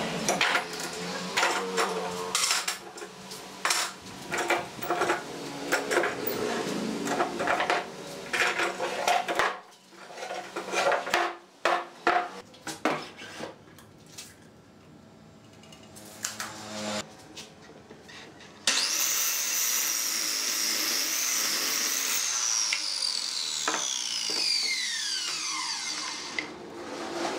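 Metal pipe clamps clattering and clicking as they are handled and tightened on a glued-up pine block, followed by a quieter stretch of small handling clicks. About two-thirds of the way in, a sliding miter saw's motor starts abruptly, runs at speed for about three seconds without cutting, then is switched off and winds down with a falling whine.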